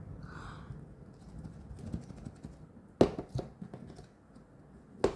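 Cake container being handled and pried open: soft rustling of the packaging, with a sharp click about three seconds in and another near the end.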